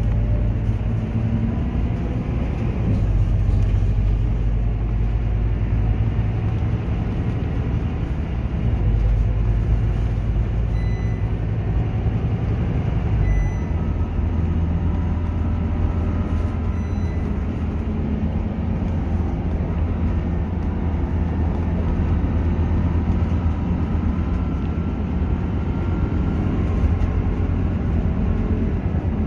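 Scania KUB single-deck city bus heard from inside the passenger cabin while driving: a steady low engine drone with road noise. The engine note shifts a few times as the bus changes speed.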